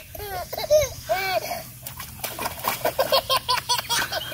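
A toddler squealing and laughing in a run of short, high, rising-and-falling cries.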